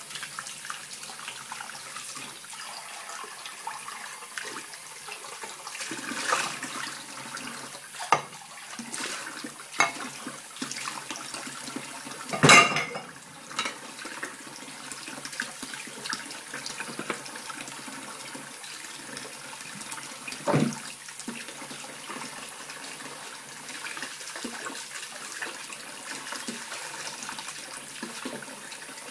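Kitchen tap running steadily into a sink while cutlery is rinsed under the stream. A few short knocks and splashes come through the water sound, the loudest about halfway.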